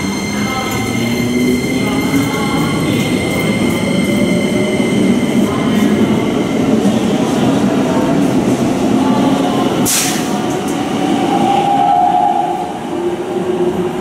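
Blue Keikyu 2100-series electric train pulling out of the platform: its traction motors whine, rising slowly in pitch as it picks up speed, over steady wheel and running noise. A short hiss cuts in about ten seconds in.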